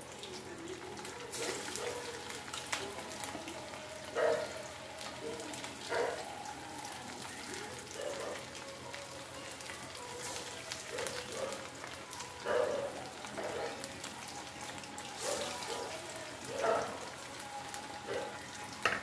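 Chicken kebab pieces deep-frying in hot oil: a steady sizzle with scattered crackles and pops.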